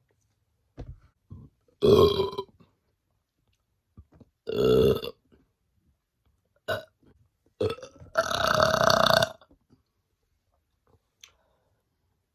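A woman burping on command, close to the microphone: three loud burps a few seconds apart, the last the longest at about a second, with short, quieter sounds between them.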